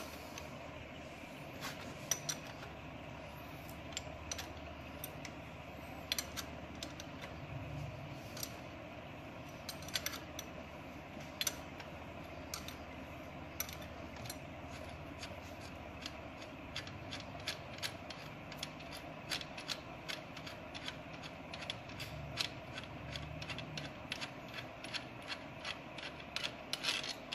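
Hand tools working on a motorcycle's gearbox shift linkage and kick-start lever: short metallic clicks and ticks, sparse at first and coming much quicker over the last ten seconds or so, over a low steady hum.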